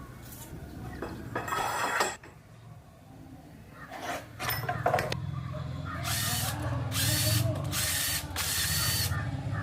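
Power tool in short bursts, four in quick succession near the end, with one earlier burst, over a steady low hum.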